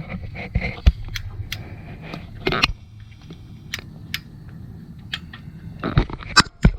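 Hand tools being handled on the engine: irregular metal clicks and taps of a wrench and socket, with a short rustle about halfway through and a flurry of clicks near the end.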